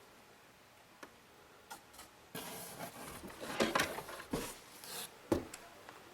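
Handling noises: rustling, with several sharp clicks and knocks, from a stick vacuum's packaging and plastic parts being unpacked and fitted together. A couple of single clicks come first, then a busier stretch of rustling and clicking, with the loudest knock near the end.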